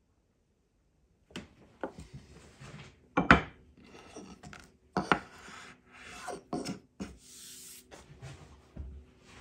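Excess black wax knot filler being scraped and trimmed flush from an oak tabletop: irregular scraping and rubbing with sharp knocks on the wood, starting a little over a second in, the loudest knock about three seconds in.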